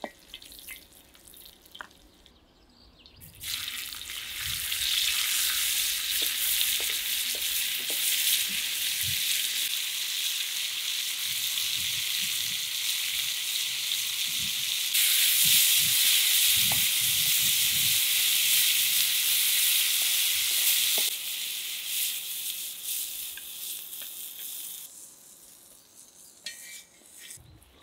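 Sliced red onions sizzling as they fry in a wide steel pan, stirred with a wooden spatula that scrapes against the pan. The sizzle starts suddenly a few seconds in, after a few light clicks, is loudest around the middle, and dies away near the end.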